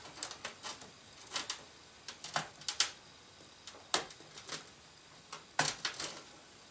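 Irregular light clicks and taps as the 8-pin power-supply cable and its plastic connector are worked around and fitted onto a PC motherboard.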